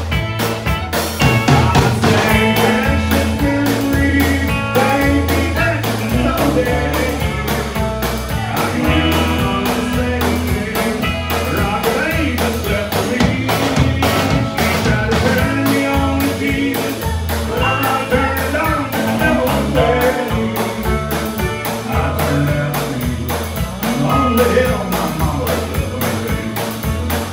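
Live country band playing with fiddle, acoustic and electric guitars and drums, keeping a steady beat.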